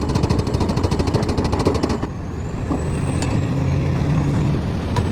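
Hydraulic hammer (breaker) on an excavator: rapid, even hammering for about the first two seconds, then a heavy engine running steadily.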